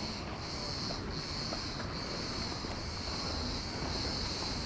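Cicadas droning in the trees: a steady high buzz that pulses briefly a few times in the first couple of seconds, then holds even, over faint outdoor ambience.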